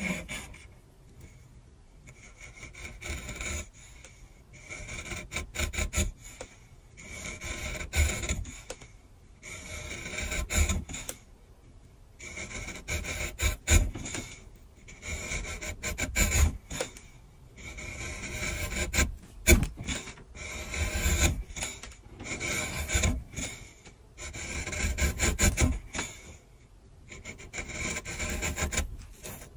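Steel chisel blade being sharpened, rubbed back and forth against an abrasive in bouts of rapid scraping strokes with short pauses between them.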